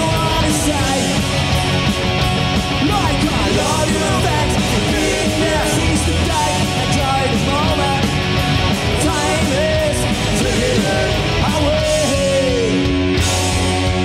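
Punk rock band playing live at full volume: distorted electric guitars, bass and drums in a steady, unbroken wall of sound.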